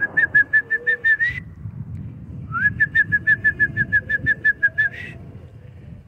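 A person whistling to call birds: two runs of quick, evenly repeated notes at one pitch, about seven a second, the second run starting with a short upward slide and both ending on a slight rise.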